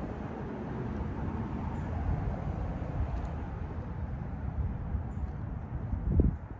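Steady, fluctuating low rumbling noise outdoors, with a single thump near the end.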